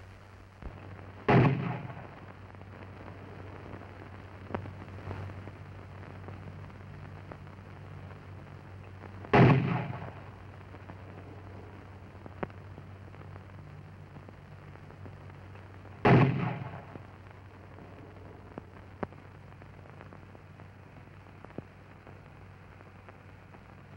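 A 60 mm mortar fires three rounds about seven seconds apart, each report a short, dull cough that trails off quickly. A steady low hum runs underneath.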